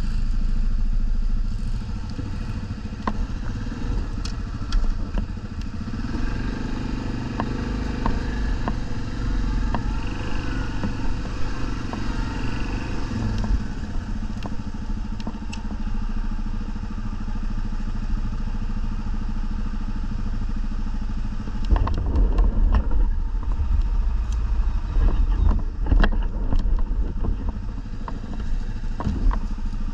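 ATV (quad bike) engines running throughout, the pitch rising and falling with the throttle for several seconds. In the last third it grows louder, with knocks and clatter.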